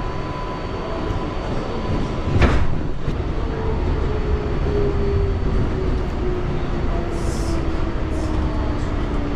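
New York City 7 train subway car running, heard from inside: a steady rumble with a loud clank about two and a half seconds in. Then a single motor whine falls slowly in pitch as the train slows.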